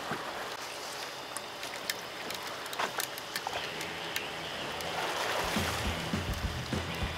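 Sea water sloshing and splashing against a fishing boat's hull, with scattered small clicks and knocks. A low rumble joins about five seconds in.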